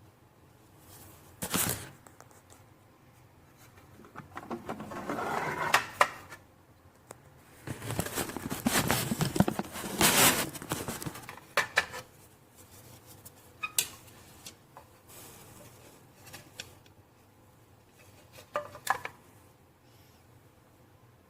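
Objects being handled at close range: a sharp click, then two stretches of rustling and clattering, the second louder, followed by a few scattered clicks and taps.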